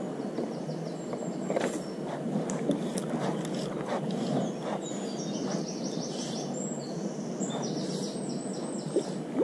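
A songbird singing rapid runs of repeated high notes, three times, over a steady low background rush with a few light clicks.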